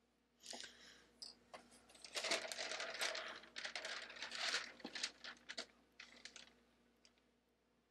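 Plastic miniature sprue being handled close to the microphone: a quick, irregular run of clicks, rattles and crinkling, busiest around the middle, then it stops.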